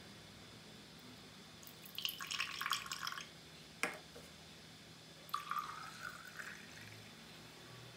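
Lemon juice splashing into a drinking glass, a short knock, then water poured from a plastic measuring jug into the glass, the pitch of the pour rising as the glass fills.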